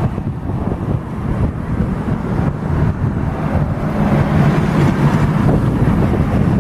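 Boeing 757 jet engines running at power, a loud low rumble whose hum grows stronger about four seconds in, with wind buffeting the microphone.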